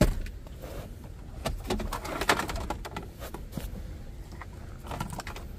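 Plastic wiring-harness connectors and loose wires being handled, with scattered clicks and rattles as a connector is unplugged from the radio harness.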